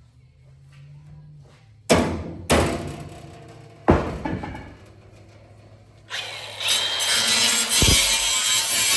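Metal repair work on a bent steel trailer fender plate: three loud, sudden strikes that each fade out over a second or so. Background music starts about six seconds in.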